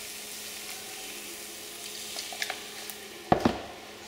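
Hot butter-and-flour roux in a frying pan sizzling steadily as milk goes in and a silicone spatula stirs it. Two sharp knocks come a little after three seconds in.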